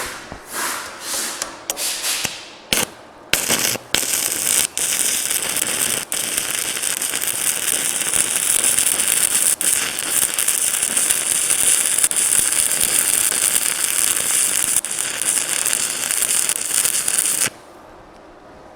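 Stick welding arc from a VEVOR 110 V inverter welder: a few short sputtering starts as the rod is struck, then a steady crackle for about fourteen seconds that cuts off suddenly as the arc is broken. The welder judges it to be running a little hot.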